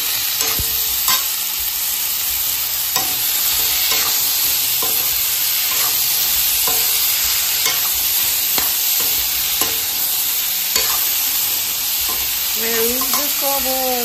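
Cubed pumpkin sizzling in oil in a metal kadai while a metal spatula stirs it. The spatula scrapes and taps against the pan about once a second over a steady frying hiss.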